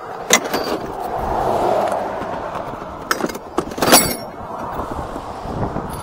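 Highway traffic passing with a rising and fading swell of a vehicle going by, broken by a few sharp clanks and clicks of tools and a plastic tool case being handled, the loudest about four seconds in.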